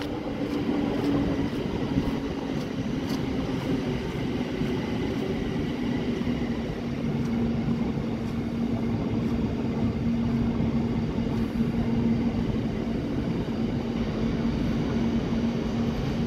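Thameslink Class 700 (Siemens Desiro City) electric multiple unit passing beneath at speed: a steady rumble of wheels on rail, with a held motor hum that settles slightly lower in pitch about two seconds in.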